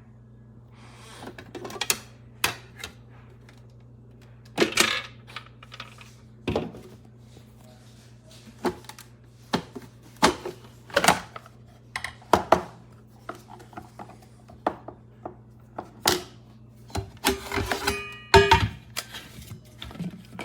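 Irregular sharp clicks, knocks and clinks of hard parts being handled, a few strikes every second or two, with a quick rattle of clinks near the end. A steady low hum runs underneath.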